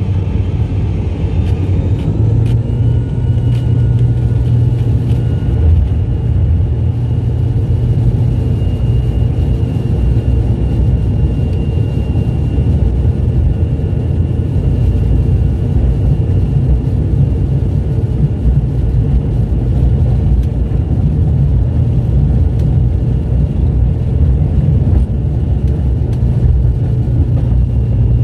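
Turboprop airliner engines at takeoff power, heard from inside the cabin during the takeoff roll: a loud, steady propeller drone with a deep hum underneath.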